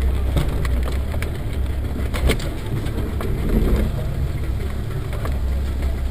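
Land Rover Defender 110 driving, heard from inside the cabin: a steady low engine and road drone with frequent sharp knocks and rattles.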